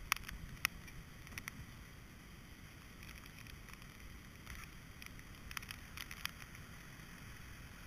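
Storm wind rumbling on the camera's microphone, muffled and low, with a few scattered sharp ticks.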